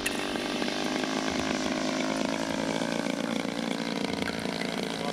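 DLE 111 twin-cylinder two-stroke petrol engine of a large RC Cessna 182 tow plane, running steadily at an even pitch in flight.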